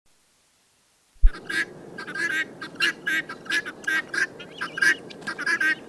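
Guinea fowl calling over and over, two to three calls a second, birds upset at being penned apart from the rest of their flock. A short low bump sounds just before the calls begin.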